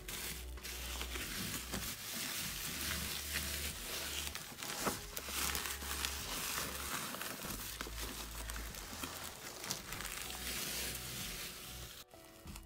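Bubble wrap around a parcel crinkling and rustling as a hand rubs over it with a tissue, with a short break near the end.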